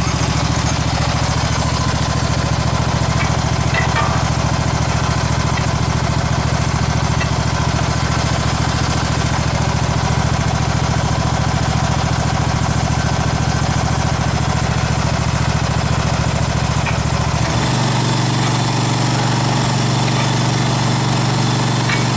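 Z-Plug aerator's engine running steadily; its low note changes and shifts higher about three-quarters of the way through.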